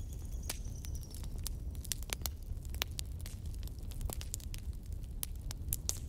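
Wood log fire burning in a fireplace grate: irregular sharp crackles and pops over a steady low rumble of flame. A faint high whistle, falling slightly in pitch, runs through the first second.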